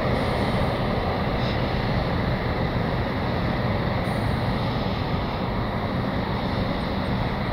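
A Boeing 777F freighter's twin GE90 turbofans running at low taxi power as the jet rolls slowly along the runway: a steady rumble with a few held higher tones.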